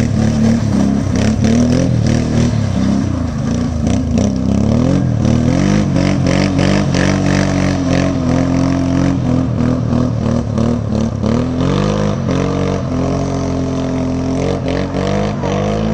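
Engine of a 1000 cc quad (ATV) running hard, its revs rising and falling again and again.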